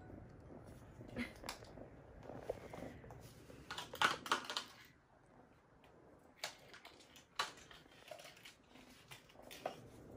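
Scattered light clicks and knocks of a kitten playing against a plastic toy on a tiled floor, with a cluster of louder clicks about four seconds in.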